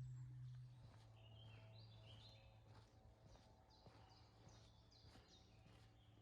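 Faint birdsong: small birds chirping in short repeated phrases, over a low steady hum that weakens about a second in.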